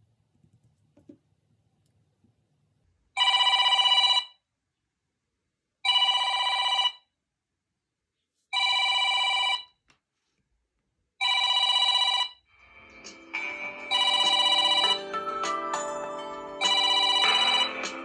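Smartphone ringing with an incoming call: a telephone-style ring tone sounds about four times, roughly a second on and a second and a half off. About twelve seconds in, a second phone's melodic ringtone joins, and both ring at once.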